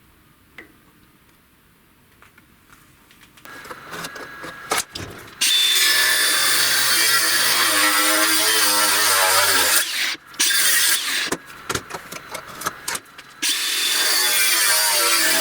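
A few faint clicks, then a power tool runs loudly from about five seconds in. It cuts out briefly a few times near the tenth to thirteenth second, then runs steadily again.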